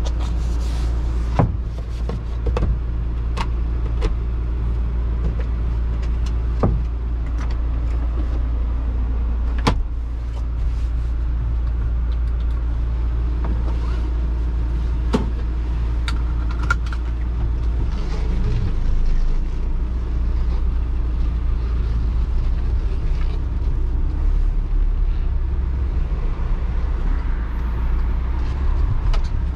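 Volkswagen T5 panel van's 2.0 TDI four-cylinder diesel driving with a steady low drone over road noise, with sharp knocks and rattles every few seconds.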